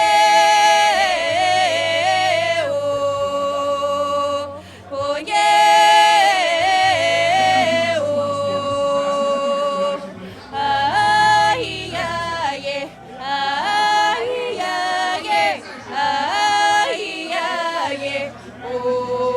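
Female folk group singing a Russian folk song a cappella in several voices, in long held phrases with short breaks between them.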